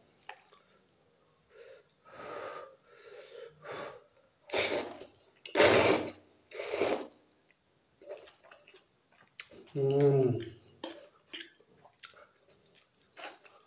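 A person slurping up forkfuls of instant Maggi noodles: three loud slurps about a second apart near the middle, with small clicks between them and a hummed 'mm' about ten seconds in.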